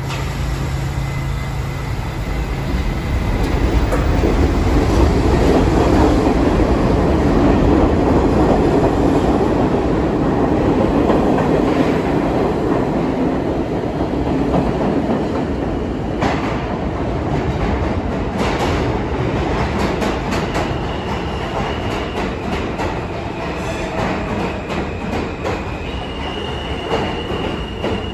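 New York City Subway train of R68A cars moving along the platform. A heavy rumble swells over the first several seconds and then eases off. Wheels click over rail joints in the second half, with a faint high wheel squeal in the last several seconds.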